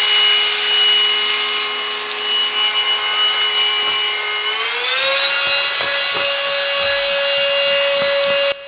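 Silvercrest SHAZ 22.2 F7 cordless cyclone vacuum cleaner running: a steady motor whine over a suction hiss. The whine steps up in pitch about halfway through, then switches off just before the end.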